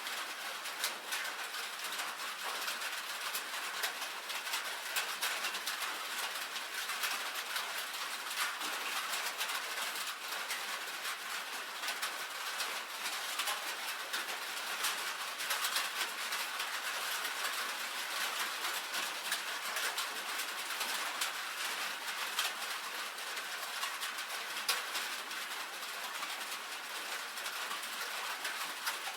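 Steady rain on a tin roof: a dense, unbroken rush of drops, made up of many small ticks on the metal.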